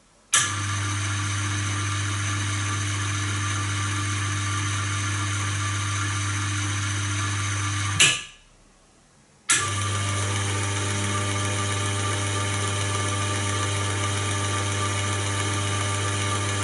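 Electric geared motor of a mixing-machine drive, fed by an inverter, spinning the shaft in an automatic cleaning cycle with a steady hum and high steady tones. About eight seconds in it cuts off with a brief loud click, stays silent for about a second and a half, then starts again abruptly and runs on.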